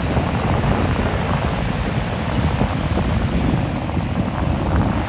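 Wind buffeting the microphone with a steady, heavy rumble, over the wash of ocean surf.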